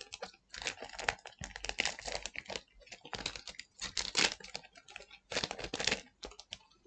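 Foil trading-card booster pack and cards being handled and opened: runs of crinkling and small clicks in bursts with short gaps.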